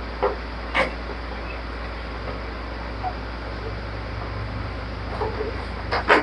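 A few short knocks and clicks from car parts being fitted by hand over a steady low hum: two early on, about half a second apart, and a cluster near the end, the loudest just before it closes.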